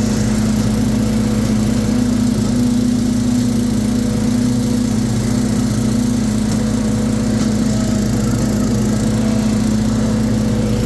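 The Kohler 18-horsepower engine of a 42-inch Hustler FasTrak zero-turn mower running steadily at an even speed.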